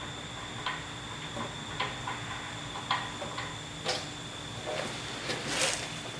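Irregular light clicks and taps, about one a second, from a wrench and hands working at the engine's oil drain plug to start the drain. A faint steady hum runs underneath.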